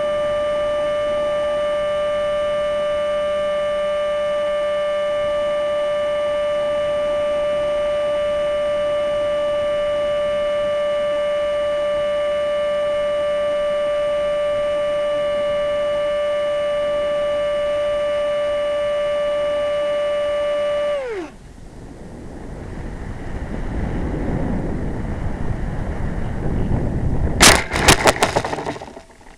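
Remote-control model's motor running at a steady high pitch, then spooling down with a quick fall in pitch and stopping. A rushing noise builds after it, and a burst of sharp knocks and rattles comes near the end.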